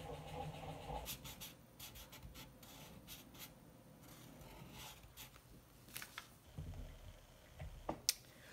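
Sharpie permanent marker drawing on paper: rubbing strokes, then many short scratchy dabs as the eye ovals are filled in. A sharp click comes near the end as the marker is capped.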